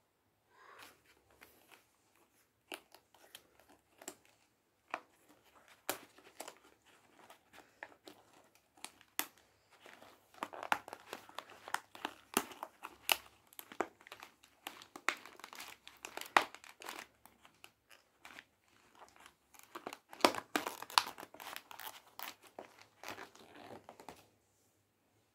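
Crinkling, crackling and tearing of foil lids and paper wrapping as a takeaway meal tray is unwrapped and its compartment lids are peeled off by hand. The sound comes in irregular handling bursts with sharp crackles, starting about a second in and stopping just before the end.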